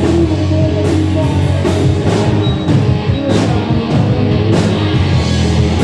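Rock music with distorted electric guitar and a drum kit, its cymbal hits coming at a steady beat.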